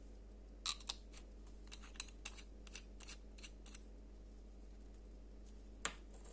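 Brass cap of a fountain pen pushed onto its brass front section: a quick run of small metallic clicks and scrapes over about three seconds, then a single sharp tap near the end as the capped pen is set down on the worktop.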